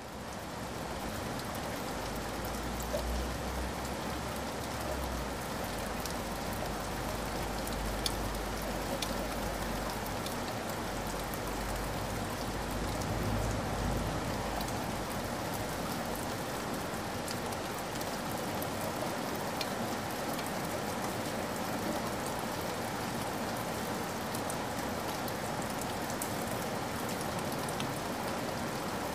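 Steady rain with scattered drop ticks, and a low rumble under it through about the first half.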